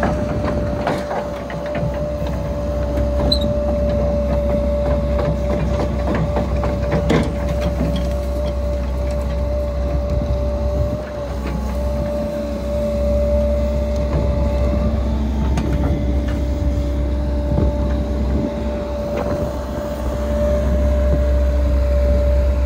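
Excavator running: a steady low engine rumble with a constant whine over it, and scattered clanks and knocks.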